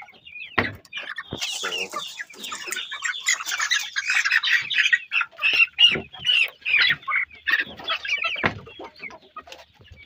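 A flock of chickens clucking and calling over one another as they feed at a trough, with a few dull knocks among the calls.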